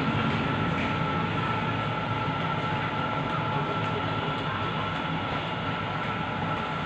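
Steady mechanical hum and rushing noise with a constant high-pitched tone.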